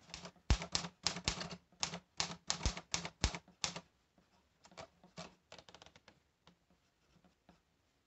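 Manual typewriter being typed on: a quick run of sharp key strikes, then fainter, sparser strikes after about four seconds.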